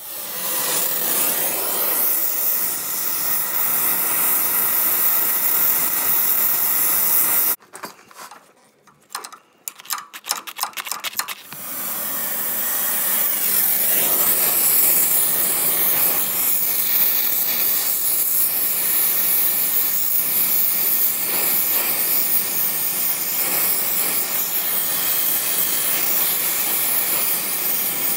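Gas torch hissing steadily as it heats seized, rusted exhaust manifold studs to free them. The hiss stops abruptly about seven seconds in, with a few short clicks over the next few seconds, then comes back and holds.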